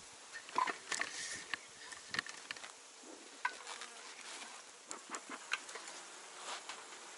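Honeybees buzzing around an open hive, with single bees passing close in short buzzes among scattered light ticks.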